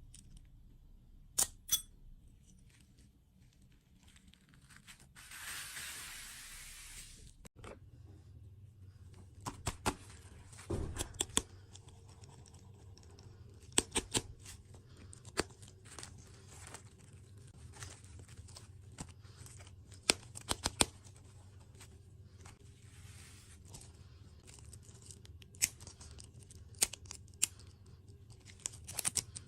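Dessert packaging being torn open and crinkled, with scattered sharp clicks and taps and a longer rustle about five seconds in.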